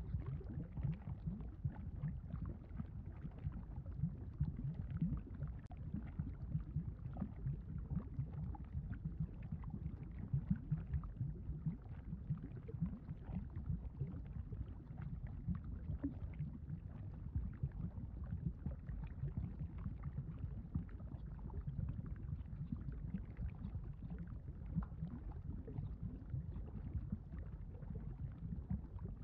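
Lava sound effect: a steady, deep rumble with a busy, churning texture.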